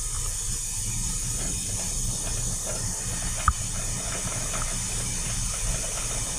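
Steady hiss of steam with a low rumble underneath, as the blow valve on a steam turbine's main steam header is opened for a line-warming steam blow. A single sharp click sounds about halfway through.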